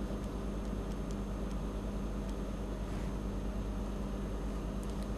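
Steady electrical hum with a constant hiss, the background noise of the recording, with a few faint ticks.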